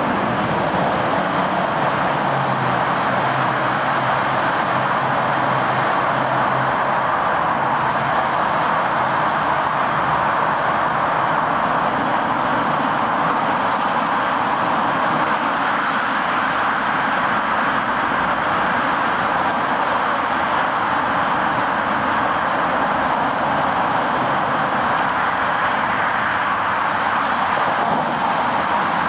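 Steady rushing noise of highway traffic, with the low hum of a vehicle's engine a few seconds in.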